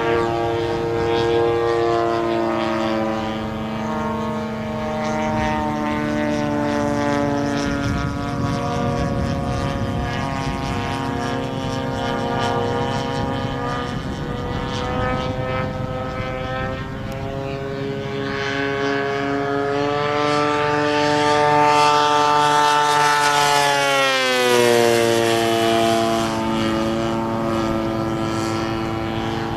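Radio-controlled model airplane flying overhead, its engine and propeller giving a steady buzzing note that rises and falls with throttle and manoeuvres. About three quarters of the way through, the pitch drops quickly as it passes.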